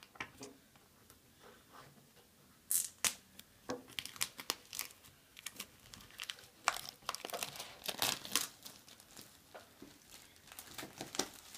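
Phone-box packaging being handled: paper and plastic crinkling and tearing in short, irregular bursts, starting about two and a half seconds in.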